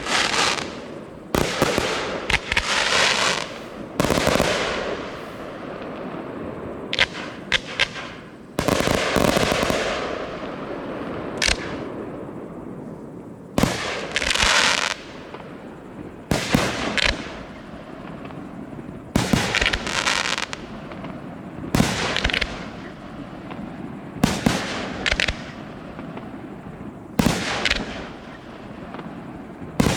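Aerial fireworks display: shells bursting one after another with a sharp bang every one to three seconds, some bursts trailing off over a second or so.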